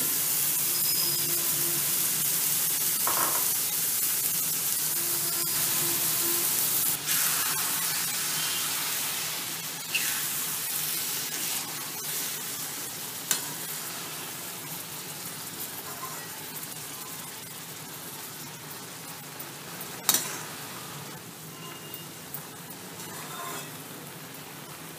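Grated white pumpkin sizzling in hot ghee with freshly added milk, the hiss slowly dying down as the milk heats through. A metal slotted spoon stirring it clinks and scrapes against the pan a few times, loudest about twenty seconds in.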